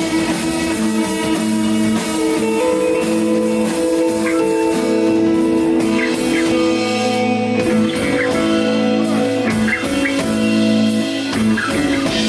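Live rock band playing: electric guitar holding long, sustained notes over bass, with drum and cymbal hits coming thicker in the second half.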